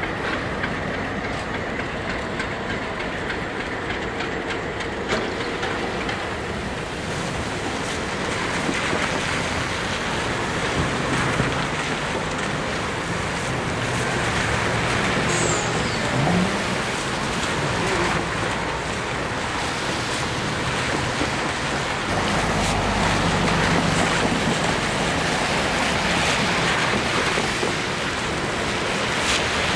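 Freight train moving slowly through a street grade crossing: diesel locomotive engine running with rail wheel noise, steady throughout, with a heavier low rumble about two-thirds of the way through.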